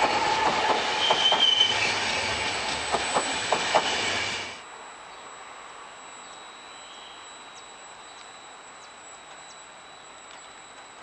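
Trenitalia regional train of Vivalto double-deck coaches passing close by, wheels clacking over rail joints with a brief high wheel squeal. About four and a half seconds in the sound drops suddenly to a faint, steady background hum.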